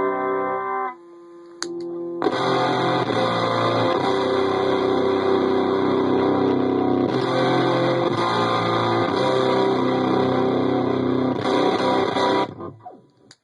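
Electric guitar played through a breadboard prototype 'Dropout Fuzz' pedal: heavily distorted, sustained chords. A held chord stops about a second in, there is a short quieter gap, then a dense fuzzed chord rings from about two seconds in until it is choked off shortly before the end.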